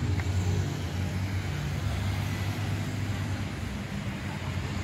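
Steady road traffic noise: a low, even rumble of passing cars.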